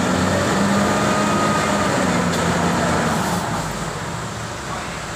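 Reach stacker's diesel engine running hard while its hydraulic boom lifts the spreader off the container, then easing down a little after three seconds in.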